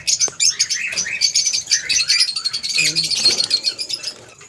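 A flock of lovebirds chattering: many rapid, high-pitched chirps overlapping continuously, dying away near the end.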